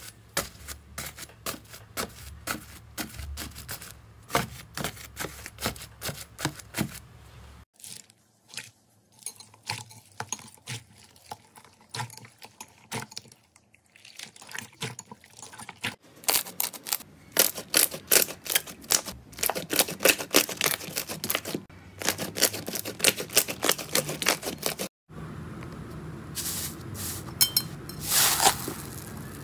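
Slime ASMR handling sounds. First comes a small rake crunching and scraping through a tray of foam beads in dense, rapid clicks. Then hands squeeze and knead slimes full of foam balls with crackling and popping, louder and faster about midway. Near the end there is squishing and a few sharp pops as hands press a thick slime.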